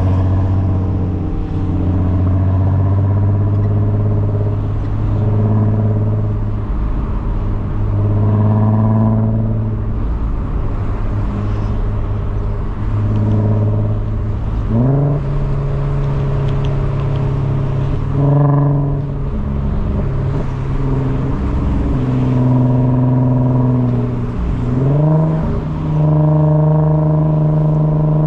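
Car engine running under way, its note holding steady at a lower pitch and then jumping quickly to a higher one several times: about halfway through, again a few seconds later, and near the end.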